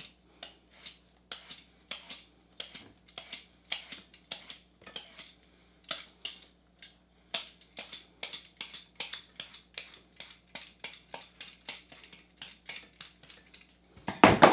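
A kitchen knife chopping on a cutting board in a run of sharp, somewhat irregular strokes, about three a second, ending in one louder knock.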